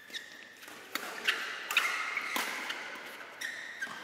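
Badminton rally: sharp racket hits on the shuttlecock, about six in four seconds at an irregular pace, with shoe squeaks on the court.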